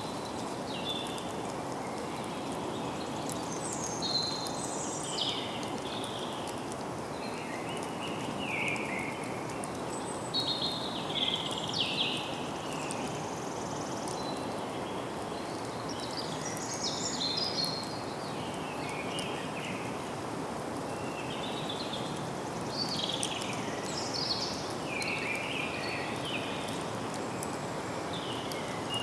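Birds singing in a forest: short chirping and warbling phrases from several birds, repeating every second or two over a steady background hiss of woodland ambience.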